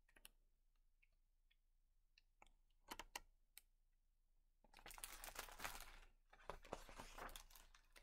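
Faint handling of a hardcover picture book: a few light clicks about three seconds in, then soft paper rustling as a page is turned, from about five seconds in.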